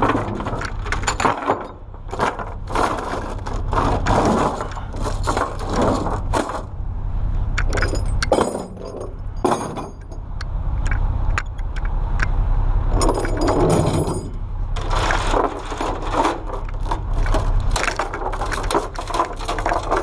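Steel tie-down chains rattling and clanking in many short metallic knocks as they are pulled loose and dropped onto a wooden trailer deck, over a steady low rumble.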